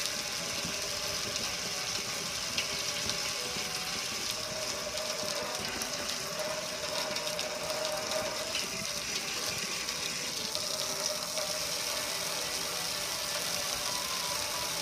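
Water spraying hard from a hose wand onto a metal gas grill, splashing and streaming off its lid and control panel in a steady hiss, with a faint steady hum underneath.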